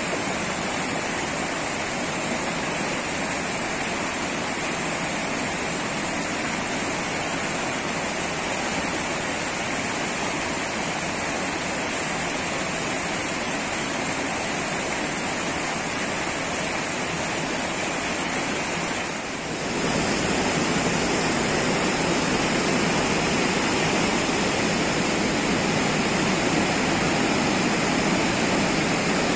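Rushing white water of a river cascading over rock slabs, a steady rush of water. About two-thirds in it dips briefly and comes back a little louder.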